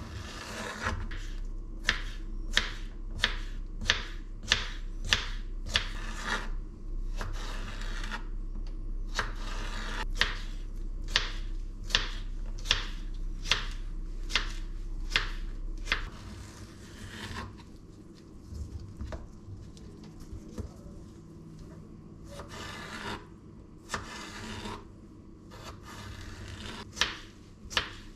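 Knife chopping cucumber and green pepper on a wooden cutting board: a steady run of sharp taps about one and a half a second. The taps thin out and soften in the middle and come faster near the end. A low hum runs under the first half.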